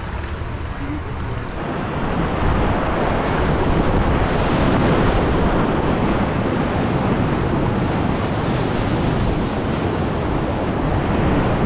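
Whitewater of a creek rapid rushing steadily, growing louder about two seconds in.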